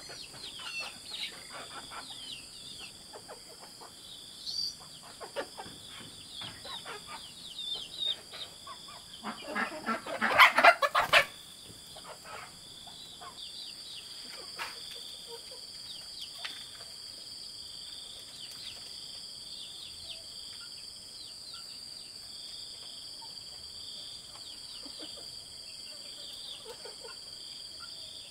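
Free-ranging chickens clucking, with a loud burst of calls about ten seconds in. After that the clucking thins out, leaving a steady high insect drone that runs underneath throughout.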